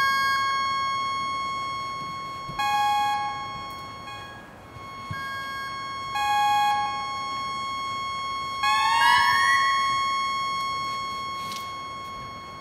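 Synthesizer sound art played through speakers: a steady high drone with new held notes coming in about two and a half and six seconds in, and an upward sliding glide about nine seconds in, then fading gradually.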